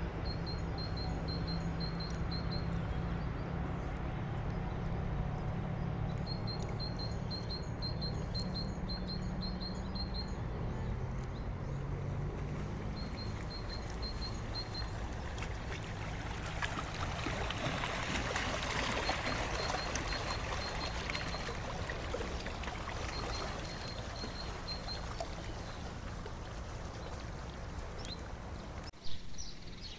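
River water trickling and splashing at the bank, louder around two-thirds of the way in. Over it a small bird sings short runs of rapid, evenly repeated high notes every few seconds, and a low steady hum underlies the first third.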